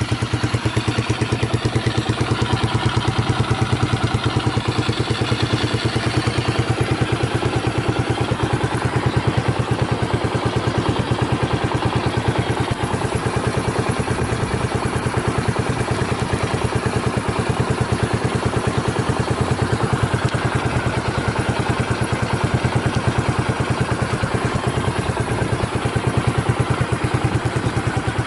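Honda GB250 Clubman's single-cylinder four-stroke engine idling steadily through an aftermarket Peyton Place exhaust, an even beat of exhaust pulses. The engine is described as revving cleanly with no abnormal noises.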